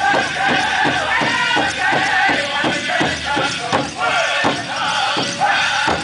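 Powwow drum group singing a grand entry song: high, wavering voices over a big drum struck together at a steady beat of about three strokes a second.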